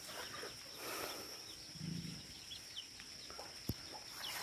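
Faint countryside ambience: a steady high-pitched insect drone, a few faint bird chirps near the end, and a soft low animal call about two seconds in.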